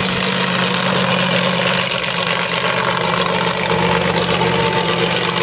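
Monster truck's engine running steadily at low revs, a deep even drone, over a steady hiss.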